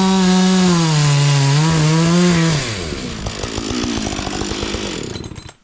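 Chainsaw running at high revs with a wavering pitch as it cuts through a log. About two and a half seconds in, the revs drop and the engine runs on lower and quieter, then stops near the end.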